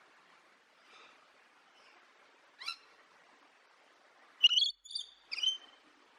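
Birds calling: a short sharp call, then a quick run of loud squawking calls about four and a half seconds in, over a faint steady hiss.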